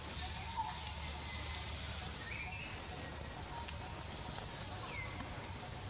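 Quiet forest background: a steady high-pitched drone with a few short, faint bird chirps scattered through.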